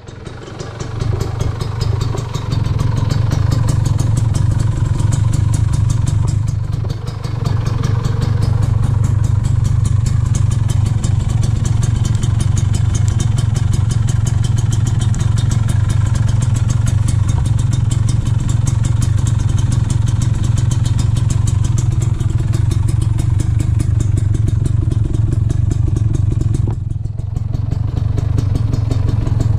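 Kawasaki Ninja 150 two-stroke single running through its stock exhaust with the baffles gutted out, a steady open, raspy note. The sound drops briefly about seven seconds in and again near the end.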